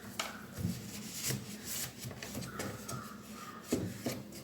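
A cloth rubbing over the plastic interior of a refrigerator, with a few soft knocks and clicks from handling its shelves and fittings.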